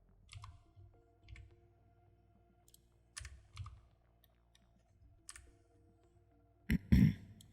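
Scattered computer keyboard and mouse clicks, about five separate clicks, with a louder double thump near the end.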